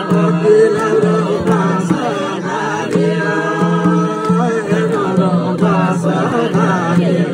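Nepali lok dohori folk singing: voices singing a chant-like folk melody over the beat of a madal hand drum.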